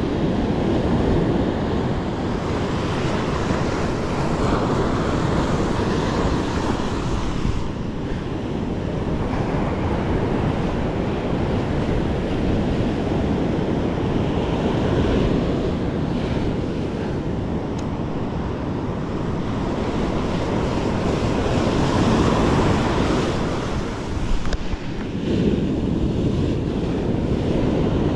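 Ocean surf breaking on a sandy beach, a continuous wash that swells and eases every few seconds, with wind buffeting the microphone.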